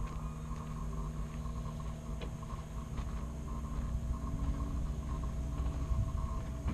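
Diesel engine of a motor scraper running steadily, a low rumble with a constant hum.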